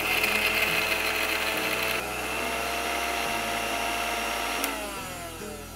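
Indian mixer grinder (mixie) motor running, pulsing green chillies and shallots to a coarse paste without water. Near the end it is switched off and its whine falls away as the blade spins down.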